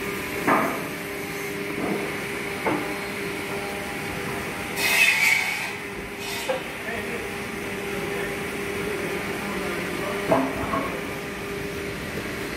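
Steady machine hum, with a few short knocks and two brief scratchy rasps about five and six and a half seconds in from hand sanding of carved wood.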